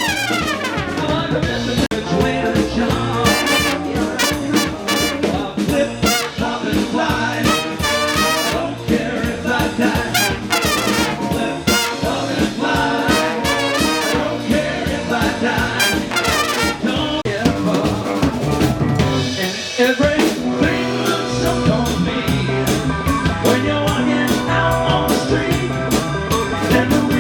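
Live band playing an instrumental passage: a brass horn section over a steady drum beat.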